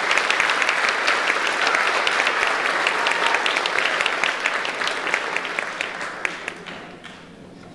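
Audience applauding, many hands clapping at once, the clapping thinning out and dying away near the end.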